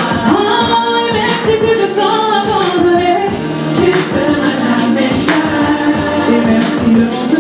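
A woman singing a melody into a handheld microphone over backing music.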